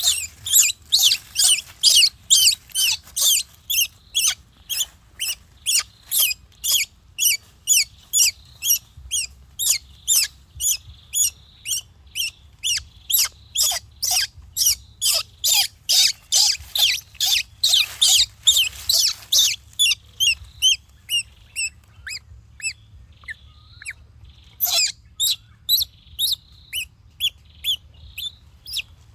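Baby monkey crying with short, high-pitched, falling squeals, about two a second, growing sparser for a few seconds near the end before picking up again.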